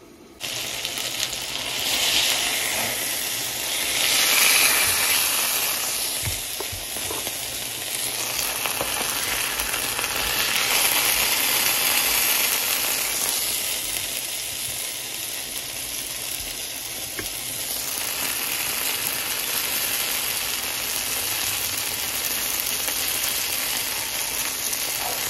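Chicken pieces and yellow bell pepper strips sizzling in hot oil in a cast-iron skillet, the frying swelling louder at times.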